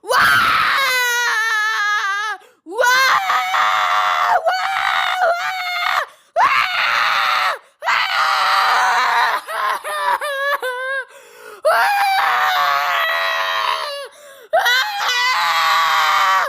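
A baby or young child crying hard: about six long, high, wavering wails, each drawn out for one to three seconds and broken by a quick breath.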